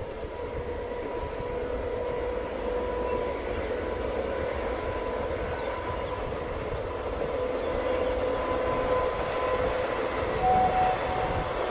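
Passenger train running past across open fields: a steady rumble of wheels on rail with a steady hum from the locomotive, growing gradually louder as it comes nearer. A short higher tone sounds near the end.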